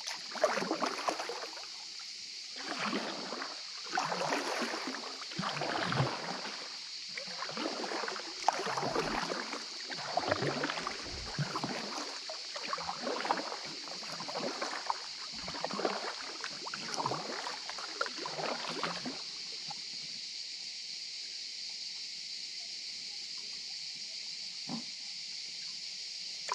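Kayak paddle blades dipping and splashing in calm water, about one stroke a second, stopping about two-thirds of the way through. A steady high hiss runs underneath.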